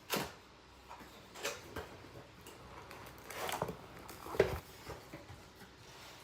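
Packaging being handled while a keyboard is unboxed: scattered knocks and taps, with a short rustle about three and a half seconds in and the loudest knock about a second after that.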